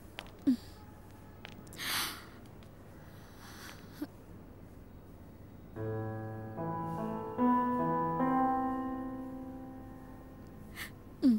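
Soft background piano music enters a little past halfway, with sustained chords that slowly fade away. Before it there is only quiet with a few short, soft noises.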